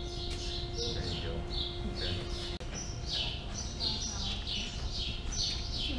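Small birds chirping, a quick falling chirp about twice a second, over a low steady rumble.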